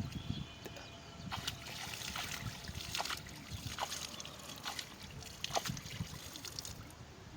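Water splashing and trickling, with a handful of sharp splashes at irregular spacing.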